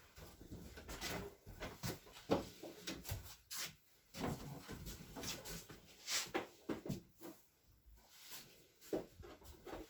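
Scattered knocks, clicks and rustling of a newly delivered refrigerator being handled once it is set in place, its parts and fittings bumped and moved.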